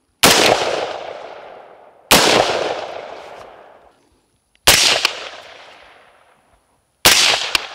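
Four single shots from an AR pistol, each cracking sharply and then ringing out for a second or two. The first two are fired unsuppressed and the last two through a Silencer Central Banish 46 suppressor.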